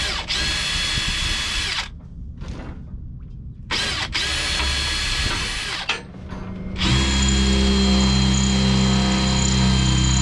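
Cordless drill running in three bursts, each spinning up quickly: two runs of about two seconds, then a longer, louder run of nearly four seconds. It is drilling into a boat's wheelhouse door to fit a latch.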